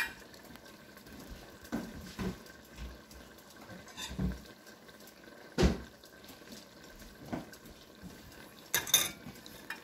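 Scattered knocks and clinks of a metal serving spoon against a ceramic baking dish as the dish is handled, with a louder knock about halfway through and a quick pair near the end.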